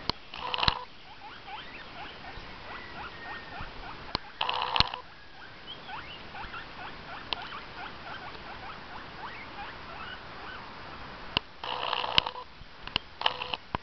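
Guinea pig vocalizing: a steady stream of small, quick squeaks, broken four times by a louder, fuller call, one just after the start, one about four and a half seconds in, and two close together near the end.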